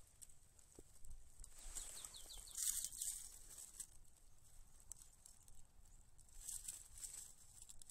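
Faint outdoor ambience with birds chirping in short bursts of quick repeated notes, once a little under halfway through and again near the end.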